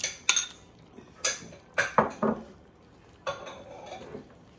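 Metal slotted spoon scraping and clinking against a ceramic bowl and the pan as diced tomatoes are scooped out into browned ground beef. The clinks and scrapes come at uneven intervals, the sharpest about two seconds in.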